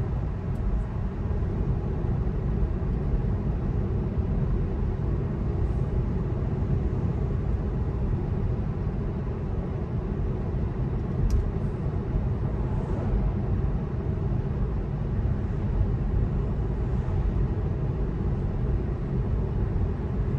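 Steady low road and tyre noise heard inside the cabin of a Tesla electric car driving at road speed, with no engine sound. A single faint click about eleven seconds in.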